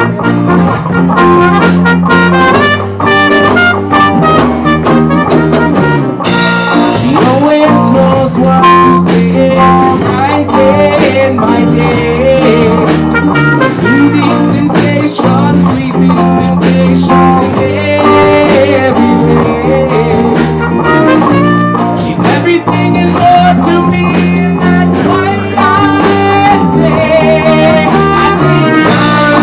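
Rock band playing live with electric guitar, keyboard and drums. The sound grows brighter about six seconds in.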